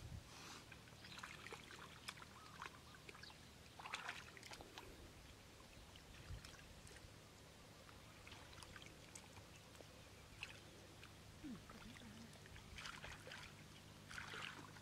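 Faint, scattered splashing and trickling of shallow muddy water as hands grope along the bottom feeling for fish, with a few slightly louder splashes about four seconds in and near the end. A low steady hum lies underneath.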